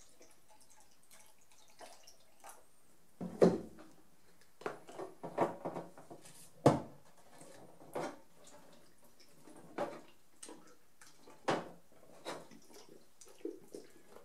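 Plastic film developing tank being capped and handled after its fill of stop water: a run of sharp plastic knocks and clicks, the loudest about three and a half and about seven seconds in, with lighter taps and rattles between.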